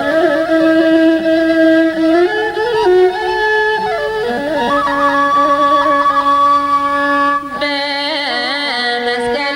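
Slow devotional hymn music: a melody of long held notes that bend and slide. There is a brief break about seven and a half seconds in, then a brighter passage.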